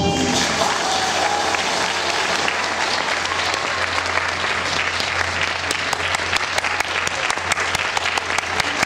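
Audience applauding as the music's last note dies away in the first second; the clapping is dense and even, then thins into more separate, sharp claps in the second half.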